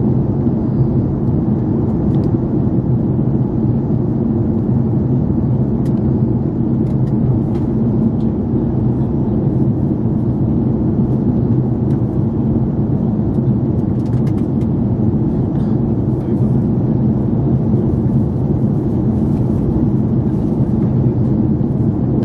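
Steady cabin noise inside an Airbus A330-300 airliner in flight: the low drone of its twin jet engines and the rush of air past the fuselage. A few faint ticks sound over it.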